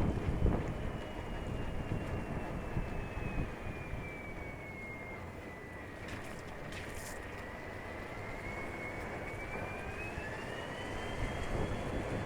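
Running noise of a moving vehicle on a ride, a steady rumble with a thin high whine that falls in pitch toward the middle and rises again near the end, the vehicle slowing and then picking up speed. A few brief clicks sound about six to seven seconds in.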